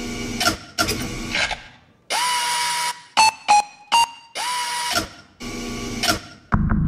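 Edited electronic sound-effects soundtrack for a robotic mime dance: short blocks of hiss with a steady beep tone in them, quick bleeps and choppy mechanical bursts, and a low thud near the end.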